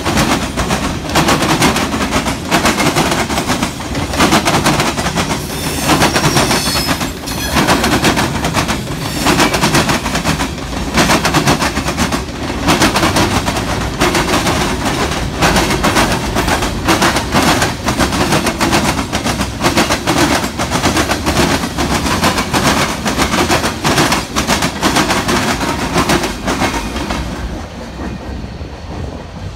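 Freight cars of a passing mixed freight train rolling by, their steel wheels banging rapidly over the track crossing with a steady low rumble beneath. The sound thins out near the end as the last car passes and draws away.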